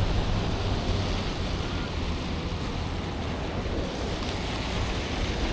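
Steady wind buffeting the microphone over the low rush of city street traffic.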